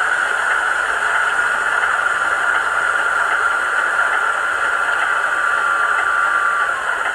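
Howes DCC sound decoder in a Bachmann Class 47 model playing the locomotive's diesel engine sound through the model's small speaker: a steady whirring run with a high whine that drops away about a second before the end.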